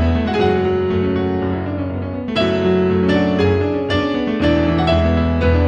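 Background music led by piano: notes struck one after another over held low notes.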